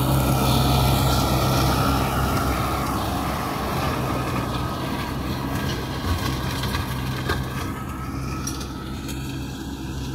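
Universal 640V tractor's diesel engine running steadily, driving a flail mower, a constant engine hum under a dense rushing noise. It eases off slightly toward the end.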